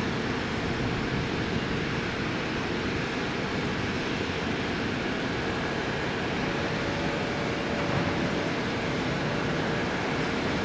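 Bell Ranger helicopter's rotor and turbine making a steady rumble as it comes in low to land.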